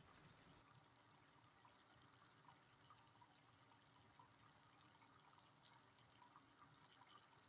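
Faint, steady rain with scattered small drips.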